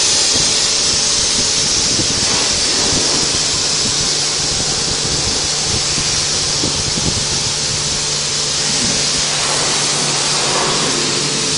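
Self-service car wash pressure washer spraying: a steady, loud hiss of the high-pressure water jet, with a low steady hum underneath.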